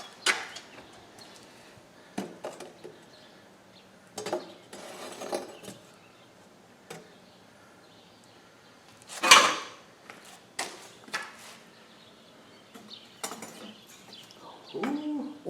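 Scattered metal clinks and knocks from tools and a crucible being handled at a forge, with one louder scraping clatter about nine seconds in.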